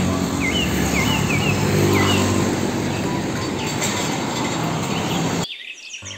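Road traffic noise with a diesel truck engine running as a loaded car-carrier truck drives along the street, a few short bird chirps near the start. The sound cuts off suddenly about five and a half seconds in.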